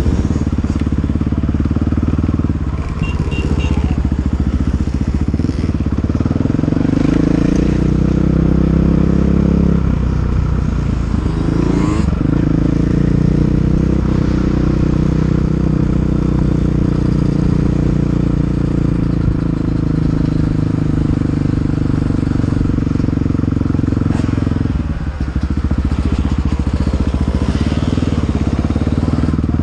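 KTM 500 EXC single-cylinder four-stroke dirt bike engine running hard under race throttle, its revs climbing and falling over several seconds. The revs drop briefly twice, about ten seconds in and again near twenty-five seconds.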